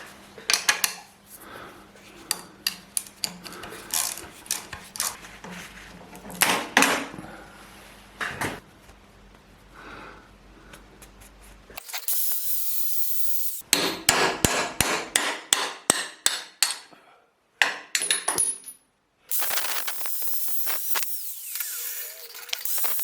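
Hand-tool work: a scattering of knocks and taps, then a run of even hammer blows about four a second, broken by two stretches of steady hissing noise that start and stop abruptly.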